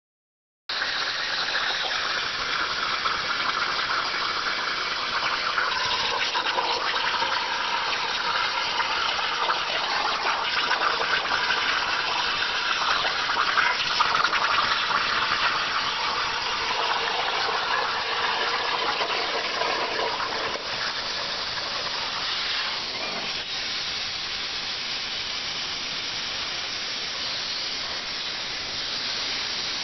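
CNC plasma torch cutting thin .040-inch steel sheet: a loud, steady hiss of the plasma arc and its compressed air. It eases a little about twenty seconds in and carries on as a steady hiss.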